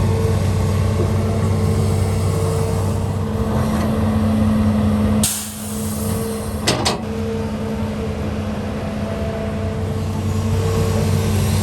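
Heavy construction machine's diesel engine running steadily. About five seconds in, a short sharp hiss as the engine note dips, followed by two sharp clanks close together.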